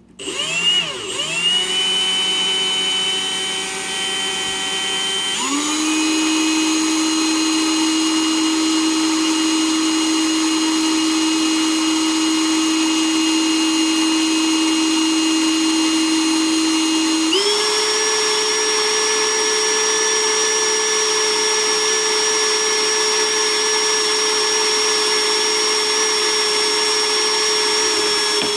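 A small electric motor, like a power tool's, running with a steady whine. Its pitch wavers as it starts, then shifts to a new steady speed about five seconds in and again about seventeen seconds in, before it cuts off.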